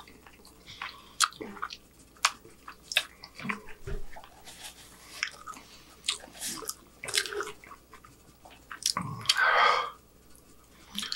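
Close-up mouth sounds of a man chewing a mouthful of burger, with wet smacks and lip and tongue clicks. A louder rush of noise lasts about a second near the end.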